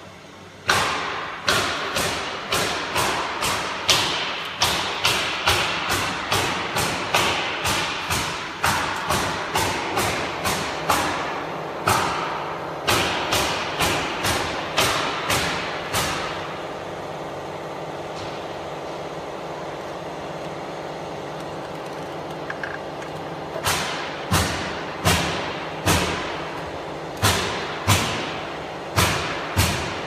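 A rapid series of sharp knocks, about two to three a second, over a steady hum. The knocks stop for several seconds a little past halfway, then start again.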